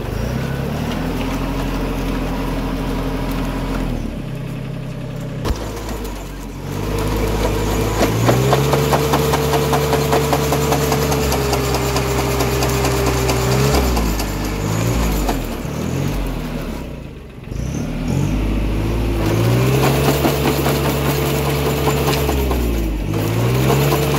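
Farmtrac Atom 26 mini tractor's diesel engine running under load while its rear rotary tiller churns through thick green growth and soil. The tiller's blades clatter steadily, and the engine's pitch sags and climbs back several times.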